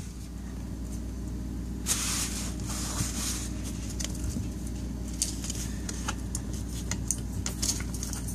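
Hands drying the ice-maker line's fitting at a plastic push-pull shut-off valve with toilet paper, making soft rustles and small handling clicks over a steady low hum. The rustles are heaviest about two and three seconds in.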